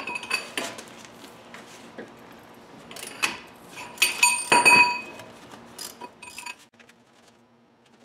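Metal tools and parts clinking against the Jeep's front wheel hub and knuckle: a series of sharp clinks with a ringing metallic tone, busiest about three to five seconds in, then dying down.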